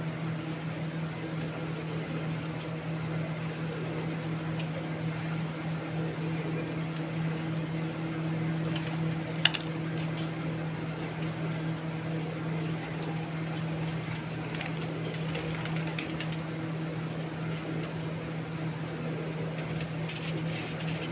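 A steady low mechanical hum from an unseen motor or appliance, with faint handling rustle and one sharp click about nine and a half seconds in.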